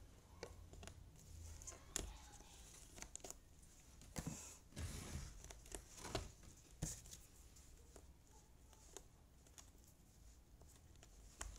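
Wooden jigsaw puzzle pieces being fitted in by hand: scattered light clicks and taps, with short scraping and rustling as pieces slide over the board. The handling is busiest about four to seven seconds in.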